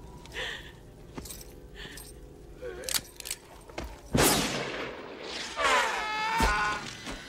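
Film soundtrack: a revolver shot about four seconds in, loud and ringing on. It is followed by a man's yell falling in pitch for about a second, and another sharp bang near the end.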